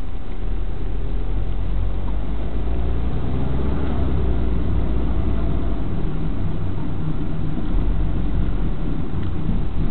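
Car's engine and road noise inside the cabin, a steady low rumble with a faint engine hum, picked up by the dashcam's built-in microphone while driving.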